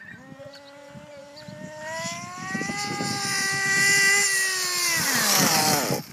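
The .21 nitro engine of an RD Logics RC buggy revving as the car drives, its high buzzing pitch climbing steadily for about four seconds. The pitch then drops away quickly, and the sound cuts off at the very end.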